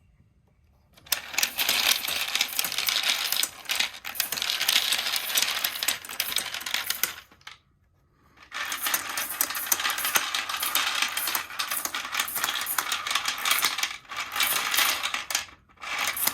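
Hand-cranked 3D-printed bullet feeder being turned, 9mm bullets tumbling and clattering against each other in the hopper in a continuous rattle. The cranking stops for about a second some seven seconds in, then resumes, with another short pause near the end.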